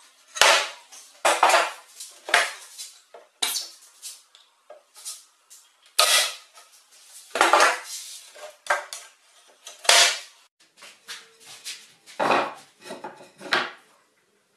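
Wooden boards and pine strips clattering and knocking as they are picked up, shifted and set down on a wooden workbench, in irregular sharp knocks, some loud.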